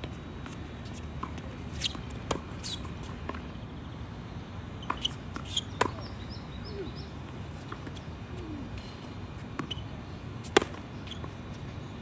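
Tennis balls struck by rackets and bouncing on the court: a scatter of sharp pops and taps at uneven intervals, clustered around two and five to six seconds in, the loudest about ten and a half seconds in, over a steady low background rumble.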